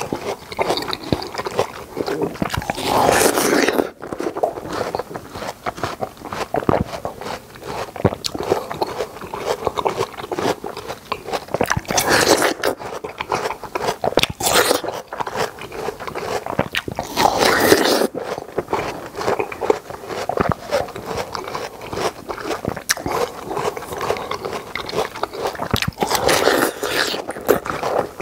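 Close-miked wet, crunching bites into the juicy red flesh of a yellow-rinded watermelon, with chewing clicks in between. Four longer, louder bites stand out, spread through the stretch.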